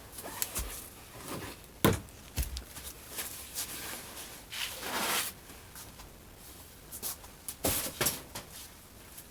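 Handling noises in a small room: scattered clicks and knocks, with one sharp knock about two seconds in and a short brushing rustle around the middle.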